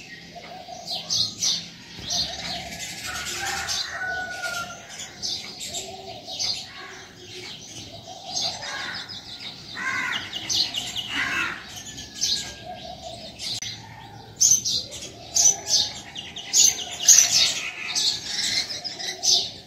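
Many small birds chirping busily, with soft repeated cooing underneath. The chirps grow louder and denser in the last few seconds.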